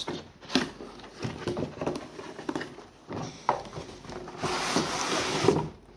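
A cardboard box being handled and opened: a run of scattered knocks and taps, then about a second of rustling and scraping near the end.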